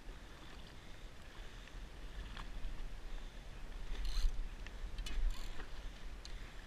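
Sea chop slapping against a drifting jetski's hull, with a few sharper splashes and knocks, the loudest about four seconds in, over a steady low rumble.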